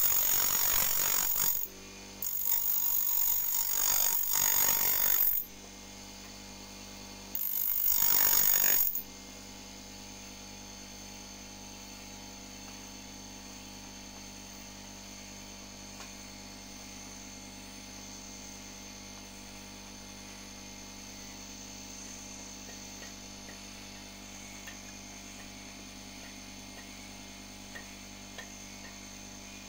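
250 W bench grinder's abrasive wheel grinding the teeth of a steel band saw blade, in three loud bursts over the first nine seconds as the blade is pressed to the wheel. After that, the grinder runs unloaded with a steady hum.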